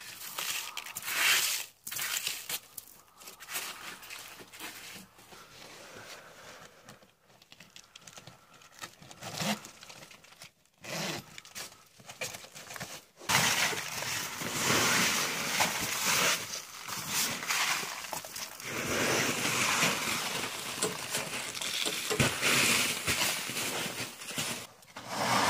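Rustling and scraping of a snow-covered canvas winter boat cover as it is pulled open and climbed over, with a few sharp knocks early on. From about halfway through it turns louder and more continuous, rising and falling.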